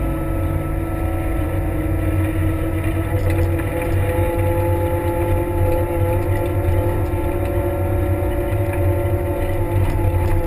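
Kramer 380 compact wheel loader's diesel engine running steadily as the machine pushes snow with its front plow blade, several steady tones sounding above the low engine note.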